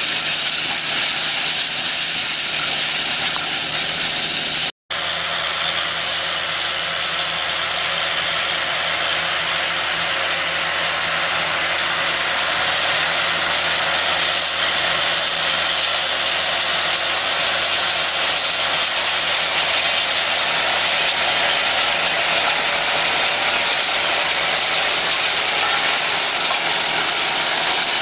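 Tractor engine running steadily under load as it pulls a chisel cultivator through the soil, with a steady hiss over the engine hum. The sound cuts out for an instant about five seconds in.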